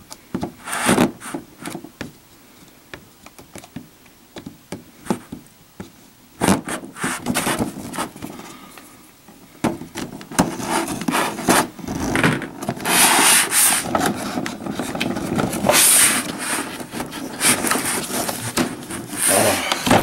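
A cardboard toy box being handled and opened. Scattered taps and knocks come first, then from about halfway a long stretch of cardboard rubbing and scraping with several sharp, hissy bursts.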